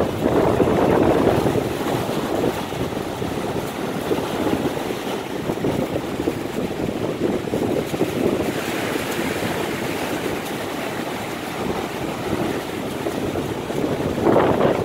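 Baltic Sea surf: small waves breaking and washing up the shore, with wind gusting on the microphone. It is a little louder near the start and again near the end.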